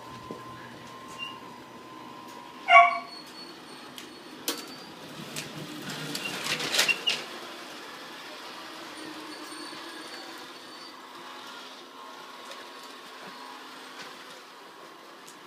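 RC semi truck running on the layout, with a faint high whine from its electric drive coming and going. There is one short, loud, pitched call about three seconds in, and a rattling, hissing swell around six to seven seconds.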